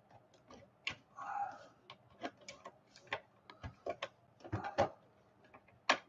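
Irregular clicks and taps of a screwdriver and fingers prying at the plastic housing of an Epson TM-T88III receipt printer, working loose an internal unit that is stuck tight.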